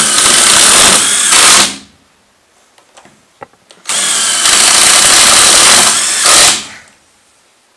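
Power drill driving long self-drilling Teks screws through a pine framing board into the bus's metal wall, in two runs: the first stops about a second and a half in, and the second starts about four seconds in and ends with a brief louder burst as the screw seats.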